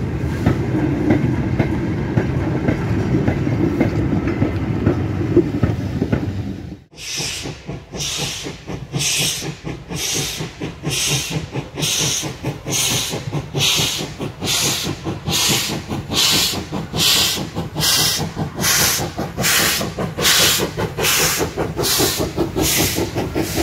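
Goods wagons rolling past at close range with a steady low rumble of wheels on rail. About seven seconds in the sound cuts to the steam exhaust of Ivatt Class 2 2-6-2 tank engine 41312 working a goods train. Its chuffs beat evenly, about three every two seconds.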